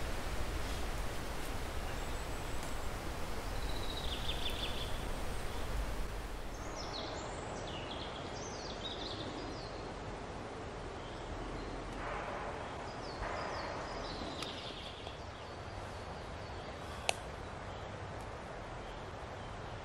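Steady outdoor background hiss with several short, high bird chirps in small groups, and a single sharp click about seventeen seconds in.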